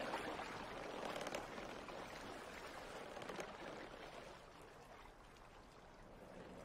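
Water sound effect: a gentle wash of lapping, trickling water that slowly fades.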